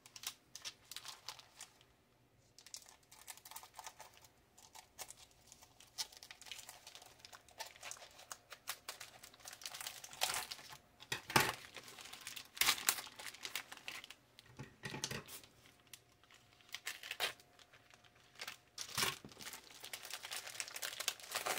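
Clear plastic wrapping on a pack of comic books crinkling and tearing as it is cut open with scissors and pulled off by hand, in uneven crackles.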